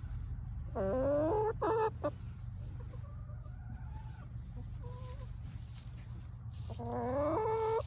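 Backyard hens calling: a loud, rising drawn-out call about a second in, a second one right after, softer calls in the middle, and another rising call near the end. A steady low rumble runs underneath.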